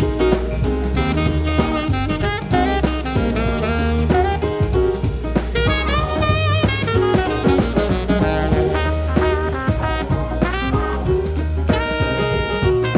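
Background music: upbeat jazz with saxophone and brass over a drum kit and bass.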